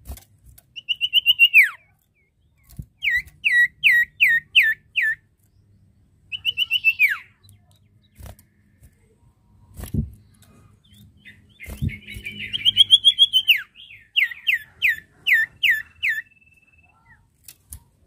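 A caged iora (sirtu, or cipoh) calling in whistled 'nyiull' phrases, the call used to challenge a rival. Each phrase is a long note that slides steeply down, followed by a quick run of five or six short whistles, each hooked downward. There are a few soft thumps between the phrases.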